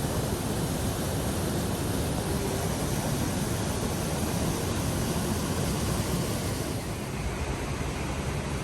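Steady rushing water of Johnston Creek, a constant roar of white water.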